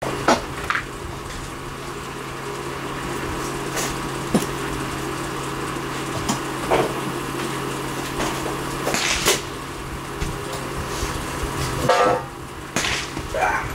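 Background sound at an outdoor shooting range: a steady low hum with scattered light clicks and knocks, and a short rising squeak near the end. The hum stops shortly before the end.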